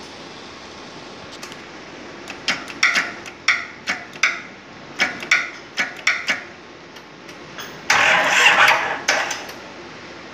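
A diesel hydrant-pump engine that has stood unused for ten years is being cranked and fails to start. There are irregular sharp knocks for a few seconds, about two a second, then one louder burst lasting about a second near the end.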